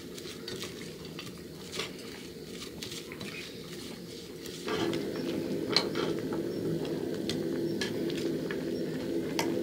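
A metal spoon tossing a chive and carrot salad in a stainless steel pot, with light scraping and clinks. About halfway through it changes to oxtail in broth boiling in a portable butane grill pan: steady bubbling with a low hum underneath and occasional clicks of tongs.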